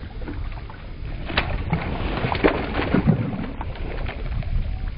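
Wind buffeting the microphone as a steady low rumble, with scattered short clicks and rustles.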